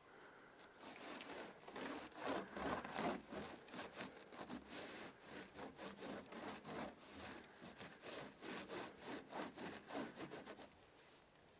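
A hand wiping packed snow off the face of a metal road sign in quick, repeated rubbing strokes, about four a second. It starts about a second in and stops shortly before the end.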